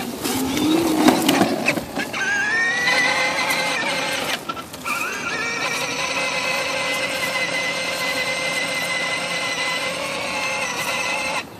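Battery-powered Mater ride-on toy truck's electric motor and gears whining as it drives. The whine rises as it gets going a couple of seconds in and breaks off briefly. It picks up again, runs steady, and cuts off suddenly near the end.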